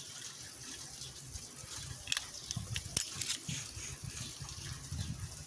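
Small, scattered clicks and light taps of the metal parts of an old skeleton-key deadbolt lock being handled, over a steady low hiss.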